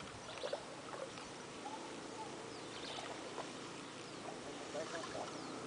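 Faint outdoor background hiss with scattered short, high bird chirps.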